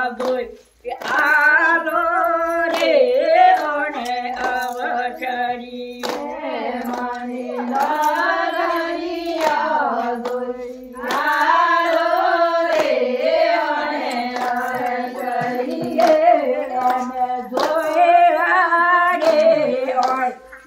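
A group of women singing a Gujarati tribal wedding folk song together without instruments, clapping their hands in time. The song breaks briefly between phrases about a second in and again around the middle.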